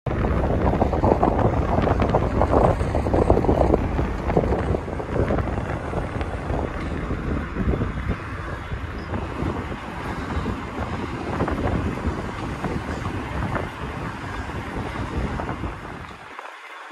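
Wind buffeting a moving camera microphone: a dense, unpitched rumble. It is loudest for the first few seconds and then eases. Near the end the deep part of the rumble cuts out abruptly.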